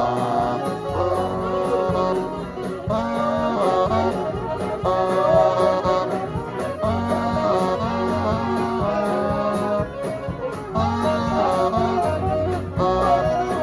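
Live swing band playing, with brass phrases and guitar over a steady bass line.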